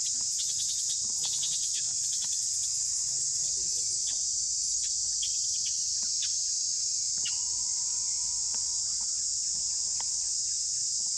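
Dense, steady chorus of insects, a constant high-pitched hiss, with scattered light clicks and rustles through it.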